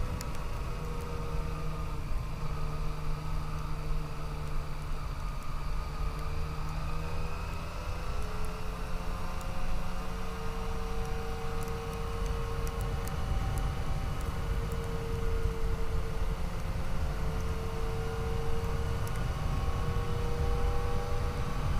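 Yamaha FJ-09 motorcycle's three-cylinder engine running on the road, its pitch drifting gently up and down with small changes in speed, under a steady low rush of wind.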